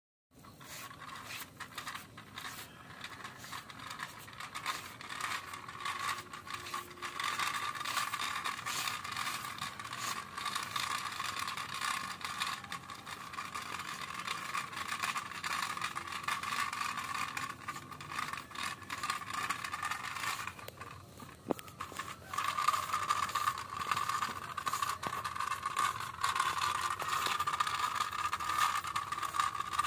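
Plastic pull-along toy car dragged on a string over rough concrete, its plastic wheels and body rattling and scraping with many small clicks. The sound drops away briefly about two-thirds of the way through, then picks up again.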